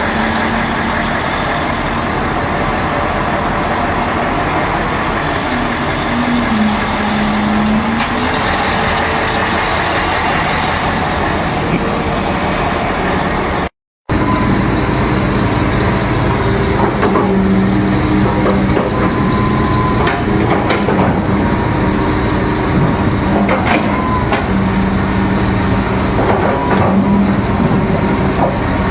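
Heavy diesel machinery engines running loudly and steadily, with a brief break about fourteen seconds in; after it, the engine noise goes on with scattered short knocks and clanks.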